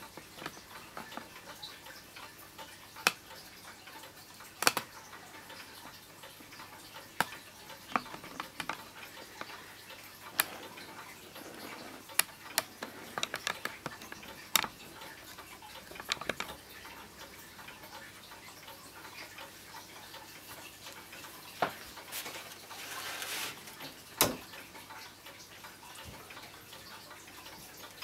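Mechanical grandfather clock ticking, its sharp clicks coming every second or two, with a short rustle and a louder knock a little over 20 seconds in.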